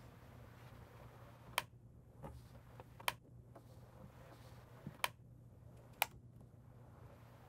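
Dynaudio in-wall speaker clicking into its tool-free frame as it is pressed in: four sharp clicks a second or two apart, with a couple of fainter taps, as the locking tabs catch.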